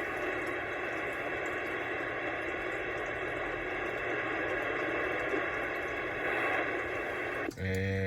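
Steady static hiss from an Anytone AT-6666 radio's speaker on the CB band. Near the end the hiss cuts out abruptly as a man's voice comes over the radio.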